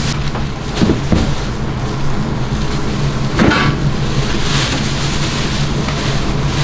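Steady background din of a market food stall's kitchen, with a low hum under it and a few short knocks and clatters from the work, one at about a second in and another past the middle.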